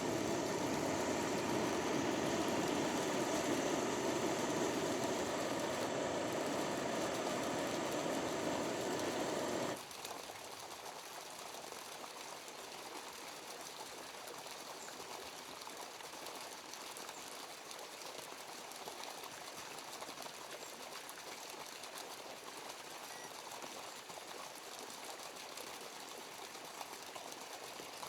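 Stream water running in a steady rush. About ten seconds in it drops abruptly to a fainter, steady flow.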